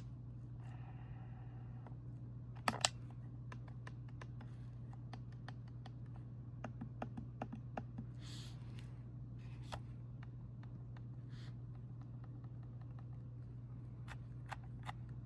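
Keychron M6 mouse with silent switches, its buttons clicked over and over: soft, muted clicks, with a louder pair of clicks about three seconds in. A steady low hum runs underneath.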